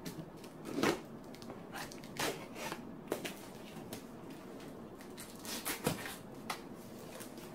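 A taped cardboard shipping box being opened by hand: a small blade slitting the packing tape and the flaps being worked loose, heard as a string of short scrapes and crackles of tape and cardboard.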